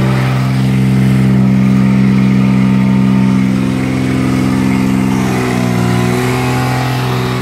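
Kubota pony motor on a bucket truck running steadily at a raised idle to drive the boom hydraulics. Its pitch dips briefly and recovers about five and a half seconds in.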